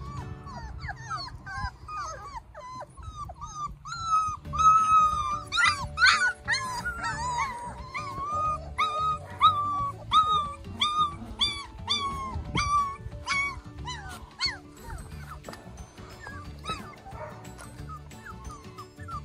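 A litter of four-week-old Old English Sheepdog puppies whining and yipping: many short high calls in quick succession, starting about a second in, busiest through the middle and thinning out near the end.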